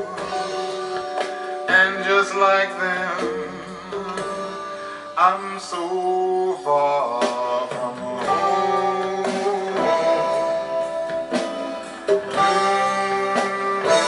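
Recorded music with a singing voice and plucked strings, played through Devore Fidelity Gibbon The Nine floor-standing speakers driven by a Pure Sound 2A3 valve amplifier, heard in the listening room.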